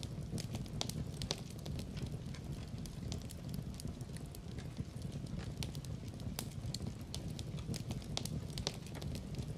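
Wood fire burning in a fireplace: a steady low rumble of flames with irregular sharp crackles and pops from the burning wood.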